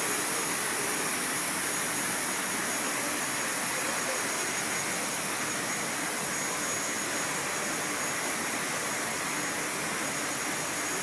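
Steady machinery noise with a strong high hiss and a faint high whine, even and unchanging throughout.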